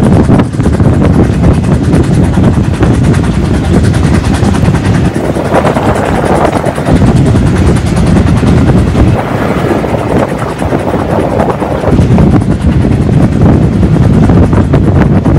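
Steam-hauled train running, heard from an open carriage window: a loud, steady rumble of the coaches on the track with wind buffeting the microphone.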